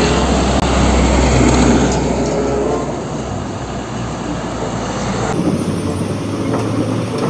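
Heavy tanker trucks driving on a road: a deep diesel engine rumble with road and traffic noise. The sound changes abruptly about five seconds in to a lighter traffic recording.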